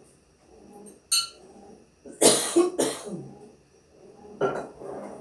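A short sharp click about a second in, then a person coughing twice in quick succession.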